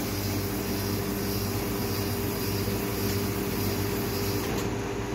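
Carbo 500 drinks carbonator running: a steady hum with a hiss over it. The high hiss cuts out about four and a half seconds in as the carbonation cycle ends with the chamber full.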